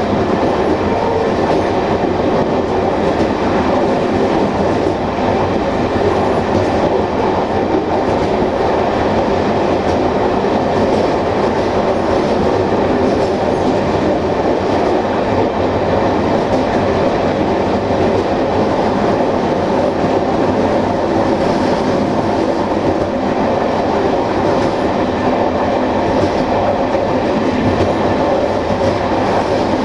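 Regional passenger train running along the line: a steady rolling rumble of wheels on rails.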